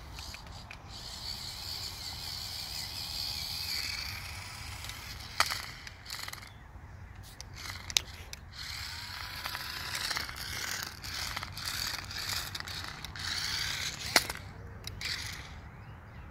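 Small electric drive motors and plastic gears of a cheap toy RC stunt car whirring in spurts as it is driven, stopping and starting several times, with three sharp clicks along the way.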